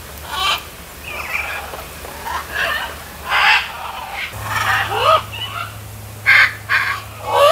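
Macaws squawking: a run of short, harsh calls, one after another throughout.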